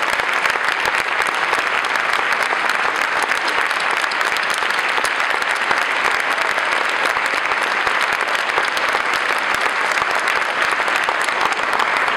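Large audience applauding, dense steady clapping that holds at an even level throughout.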